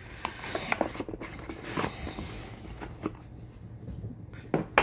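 Cardboard knife box being handled and moved off a wooden table: scattered rustling and light taps, with a couple of sharper knocks near the end.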